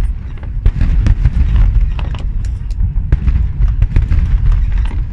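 Fireworks bursting in rapid succession: many sharp bangs and crackles over a continuous deep rumble.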